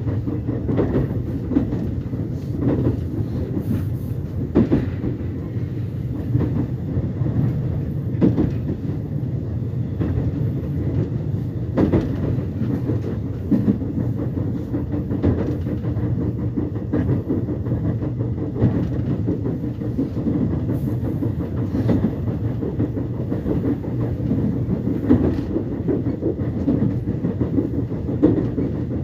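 Subway train running between stations, heard from inside the car: a steady low rumble with irregular clacks and knocks from the wheels on the track.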